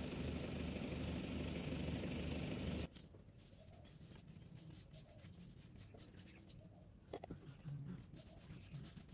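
A steady low hum and rush of noise that cuts off sharply about three seconds in. Then faint brushing and scratching of a paintbrush stroking paint onto rough wood pallet fence boards, with a few light ticks.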